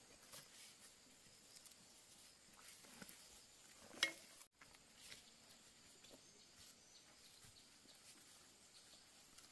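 Near silence: faint scattered ticks and rustle, with one sharp click about four seconds in.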